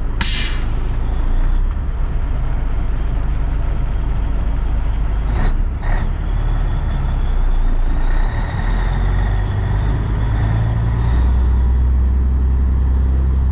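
Heavy diesel truck engine idling with a steady low rumble, heard from inside the cab of a 1984 Peterbilt 362 cabover. Right at the start comes a short hiss of air, there are two short knocks about halfway through, and from about eight seconds in a steady whine joins as the rumble grows heavier near the end.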